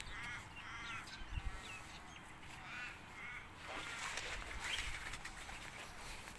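Birds calling outdoors: runs of short, harsh, repeated calls in the first second and again around three seconds in.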